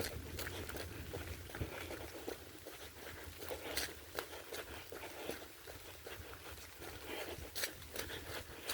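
A runner's footsteps on a wet, muddy woodland trail, irregular crunching strides, over a steady hiss of rain falling on the trees.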